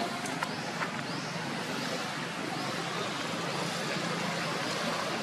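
Steady traffic noise from a nearby road, with a faint high chirp repeating roughly every two-thirds of a second over it.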